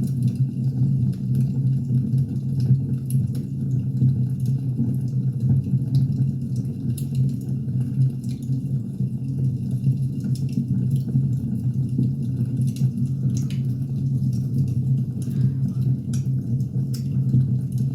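Firewood burning: scattered, irregular crackles and pops over a steady low rumble.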